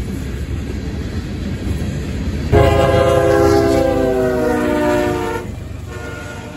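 Freight train cars rolling past; about two and a half seconds in, a CSX diesel locomotive's air horn starts abruptly and sounds a chord for about three seconds, its notes shifting once partway, then drops away.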